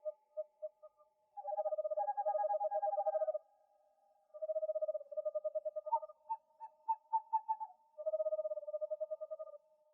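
Owls calling: a few short single hoots, then rapid trilled runs of hoots lasting one to two seconds each, with a run of separate, slightly higher hoots in between.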